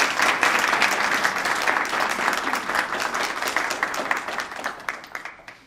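Applause from a small group of people clapping, fading away toward the end.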